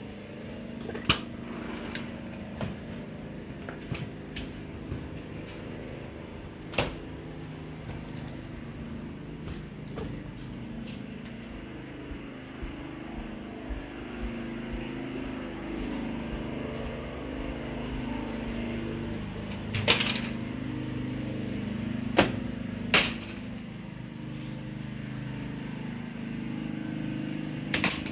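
Scattered knocks and clicks of someone walking through a house, through a security screen door and over timber floors, with a few sharper knocks about a second in, near seven seconds and around twenty to twenty-three seconds. A steady low hum runs underneath.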